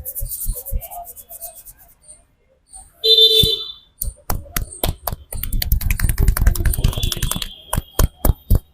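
Hands slapping and chopping in a percussive massage: scattered sharp slaps, then a fast run of rapid slaps lasting about two seconds, then single loud slaps near the end. A brief high-pitched squeak about three seconds in.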